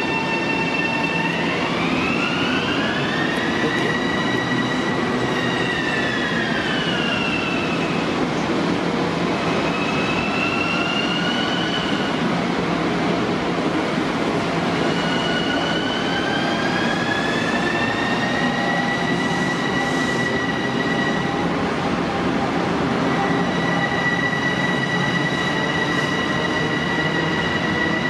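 Long Island Rail Road electric multiple-unit train moving through an underground station: a high motor whine glides up and down in pitch several times, then holds steady near the end, over a steady rail rumble.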